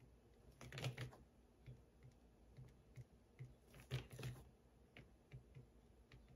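Faint, scattered taps and scratchy clicks of a heated encaustic wax stylus tip working on a wax-painted card, a little stronger about a second in and again about four seconds in.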